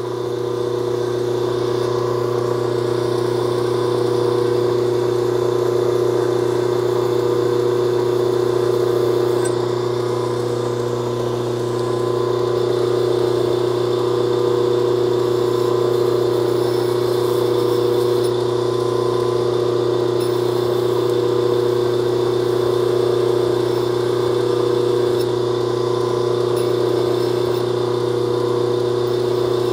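Slow-speed belt grinder running with a steady hum, with a 220-grit belt grinding the edge of a forged steel Pulaski axe head to raise a burr for sharpening.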